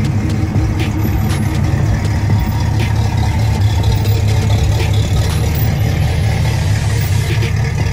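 Car engine idling with a steady, deep low rumble.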